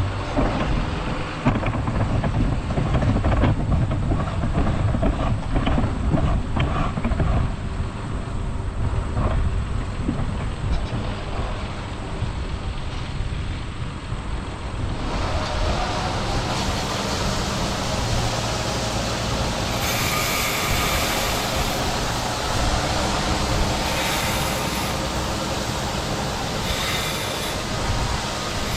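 Heavy harvest machinery running, with a low rumble and dense mechanical rattling and clicking. About halfway through it gives way to a steadier, even rushing hiss.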